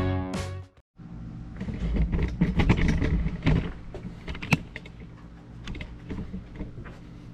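Background music that cuts off under a second in, followed by a run of light clicks and knocks over a low steady hum, busiest in the first few seconds and then quieter.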